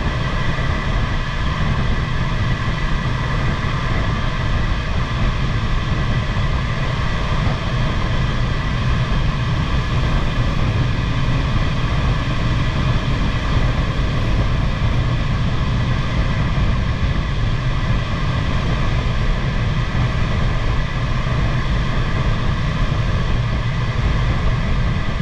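Steady rush of air around a glider's cockpit and canopy in flight, unchanging throughout, with a few faint steady tones over it and no engine.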